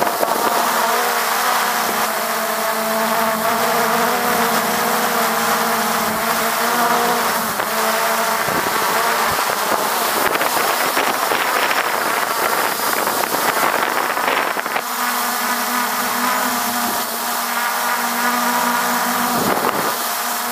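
Bugs 3 quadcopter's brushless motors and propellers running in flight, picked up by a camera mounted directly beneath them: a steady, many-toned buzz whose pitch shifts a few times as the motors change speed.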